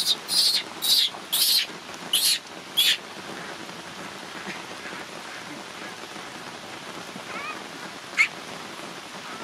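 Baby macaque crying in a string of short, high shrieks, about five in the first three seconds, over a steady hiss of rain. A single brief high squeak comes near the end.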